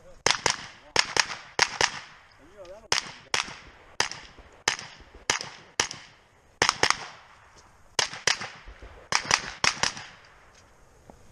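Rifle shots fired in rapid succession during a timed stage: quick pairs and short runs of sharp cracks, about twenty in all, each with a brief ringing tail, separated by short pauses between targets.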